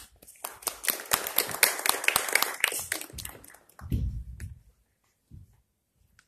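A small audience applauding for about three seconds, then dying away, with a dull low sound about four seconds in.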